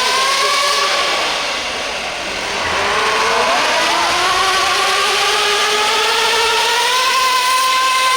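RC pulling vehicle's motor whining under load. Its pitch dips about two seconds in, then climbs slowly and evenly over the next few seconds before holding steady.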